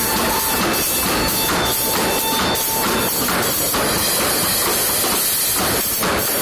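Live band music from a drum kit, bass guitar and saxophone, with sharp percussive hits in a steady beat from the drums and the tap dancers' shoes on wooden boards. A long held note stops about three seconds in.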